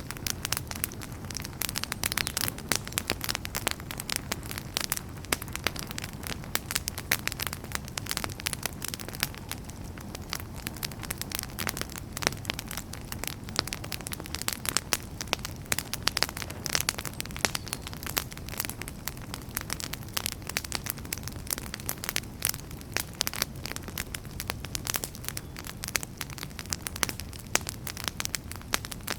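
Wood fire in a fireplace crackling and popping with many sharp, irregular snaps over a steady low rumble of the flames.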